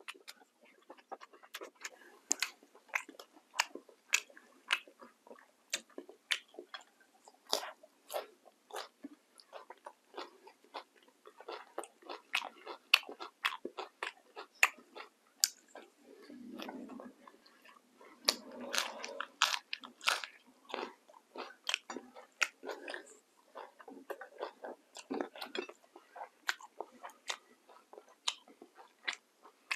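Close-miked mouth sounds of a man eating with his fingers: wet chewing and lip smacking with many sharp, irregular clicks. The chewing grows fuller and denser about halfway through.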